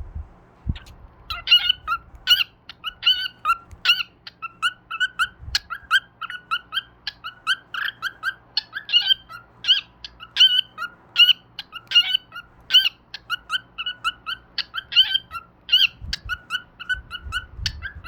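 Cockatiel chirping: a long run of short, repeated calls, several a second, starting about a second in.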